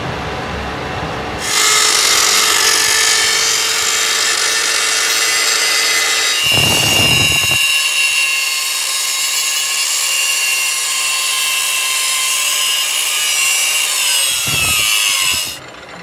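A power tool working metal runs steadily, with a high hiss and a few high tones, starting about a second and a half in and cutting off just before the end.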